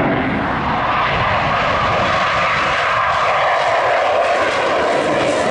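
Panavia Tornado jet taking off at full power with afterburners lit: loud, steady jet noise from its twin RB199 turbofans.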